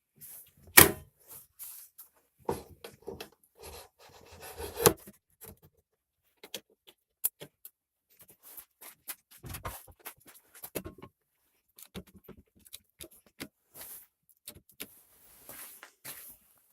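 Scattered clicks, knocks and short rattles of parts and tools being handled on a workbench, with sharper knocks about a second in and about five seconds in.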